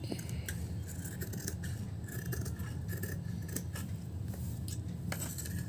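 Scissors snipping through layers of fabric and buckram in a quick run of cuts, about two to three snips a second, over a steady low hum.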